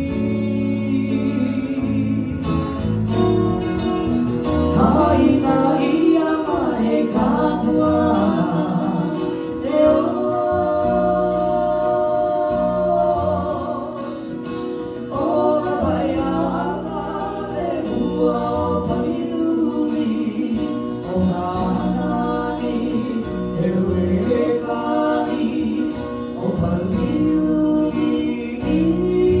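Live acoustic guitar strumming a slow Hawaiian hula song, with a voice singing long held notes over it from about five seconds in.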